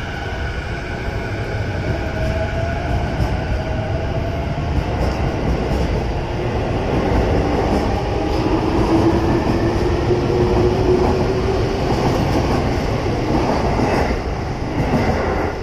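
JR East E233 series Chuo Line commuter train pulling out of the station, its traction motors whining and rising in pitch as it gathers speed. The running noise of the wheels on the rails grows steadily louder.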